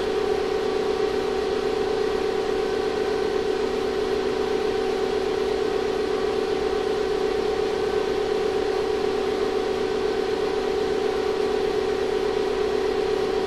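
Steady hum of a 2500-watt ZVS induction heater under heavy load, its 10-inch pancake work coil heating a thin galvanized iron sheet while drawing about 50 amps. It holds one steady pitch, with fainter higher tones over it.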